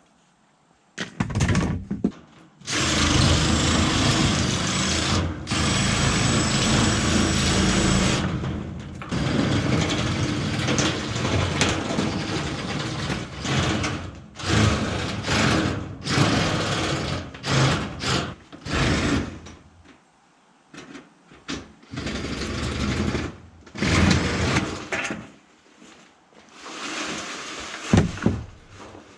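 A handheld power tool cutting across a corrugated metal roofing sheet. It makes one long cut of several seconds, then shorter runs with brief stops, and a few short bursts near the end.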